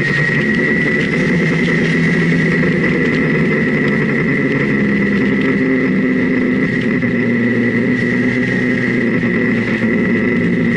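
Car engine running while driving through a series of bends, its pitch stepping up and down as the revs change, with a steady high whine above it.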